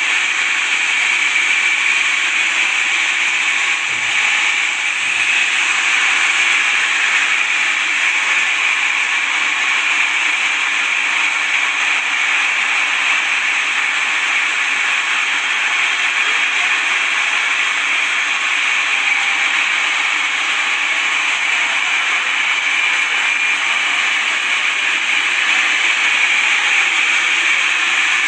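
Sawmill saw cutting through wood: a steady, unbroken hiss with a high ring in it.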